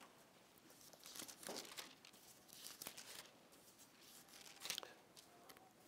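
Faint, soft paper rustles of Bible pages being turned, a few brief rustles in an otherwise quiet room.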